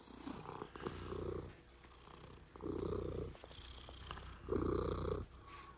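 Orange-and-white barn cat purring while being petted, the purr swelling and fading in three or four phases with its breathing.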